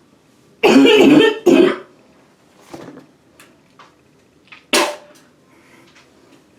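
A woman coughing hard in a fit: two loud coughs close together about a second in, a weaker one near three seconds, and one more sharp cough near five seconds.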